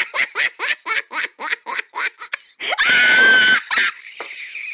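Rapid staccato cackling laughter, about five bursts a second, broken about three seconds in by a loud high-pitched shriek lasting about a second.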